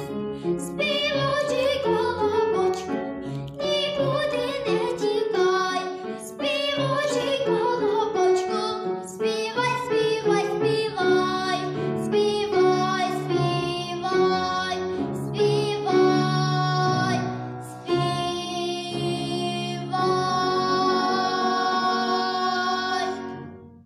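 A young girl singing a children's song in Ukrainian, accompanied on piano. Near the end she holds one long final note, then the music stops.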